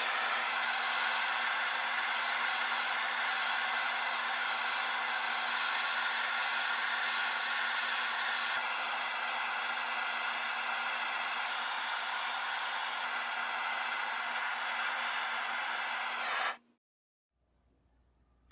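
Propane torch burning with a steady hiss as it heats a rifle barrel's silver-soldered rear sight base to melt the solder. The flame cuts off suddenly near the end.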